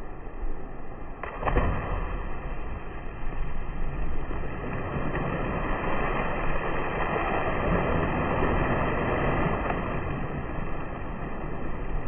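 Slowed-down sound of a person jumping into a swimming pool: a sharp knock a little over a second in, then a long churning wash of splashing water that swells in the middle and slowly fades.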